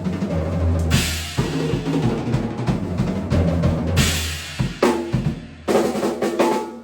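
Tama Starclassic drum kit played in a groove with kick, snare and ringing toms, with cymbal crashes about a second in, about four seconds in and near the end. The playing stops abruptly at the end. Captured as raw audio on an iPhone microphone.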